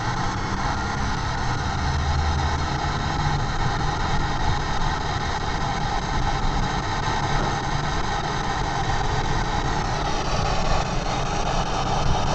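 Engine and road noise inside a moving car: a low, steady engine hum under an even hiss.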